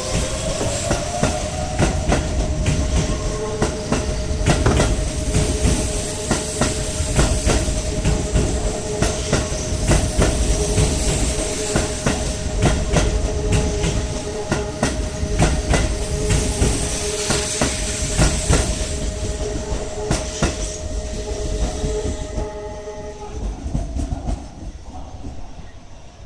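Keihan electric train running through the station-yard level crossing, wheels clicking rapidly over the rail joints with a heavy rumble. Two steady tones are held under it and cut off together about 23 seconds in, after which the sound dies away.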